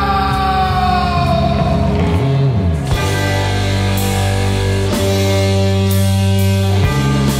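Rock music with a heavy, sustained guitar and bass sound; a held note glides down in pitch over the first two seconds.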